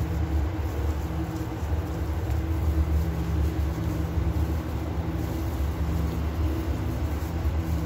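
A steady low machine hum with several held low tones, unchanging throughout.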